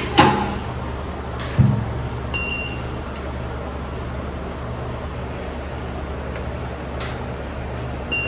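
A short electronic beep from the wheel balancer's control panel about two seconds in, as a measurement is keyed in, with another beep at the very end. A steady low hum underlies it, and two soft knocks come near the start.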